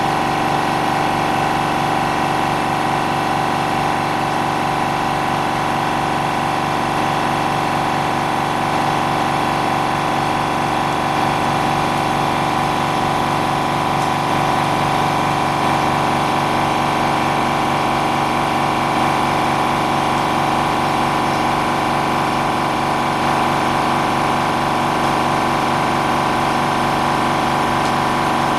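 Steady, unchanging hum of an electric machine motor running, with a constant whine layered over a low drone.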